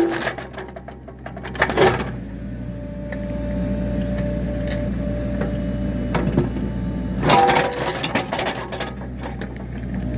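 Small excavator's engine running steadily under load. A hydraulic whine holds for a couple of seconds in the middle, and scrapes and knocks come from the bucket digging in dirt and against a large rock.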